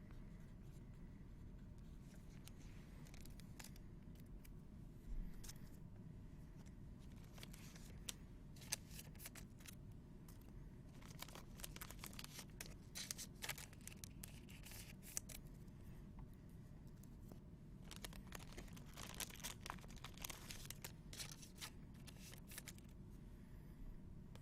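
Faint tearing and rustling of trading card pack wrappers and cards being handled, coming in scattered spells of short crackles over a low room hum.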